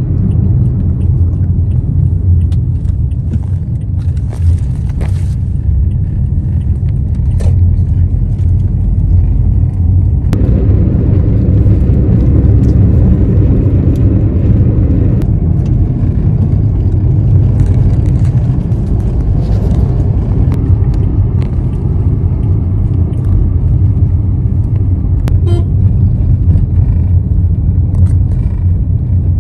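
Loud, steady low rumble of a road vehicle in motion, with scattered light clicks and rattles; the noise grows fuller about ten seconds in.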